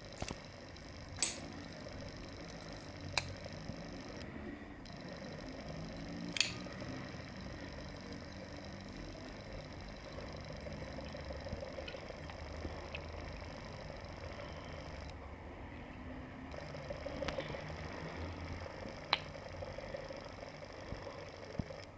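Framelock folding knife being handled: the blade snapping open and shut against its detent and lock, about half a dozen sharp metallic clicks spread out, the loudest about a second in and about six seconds in, with a few fainter ticks between them.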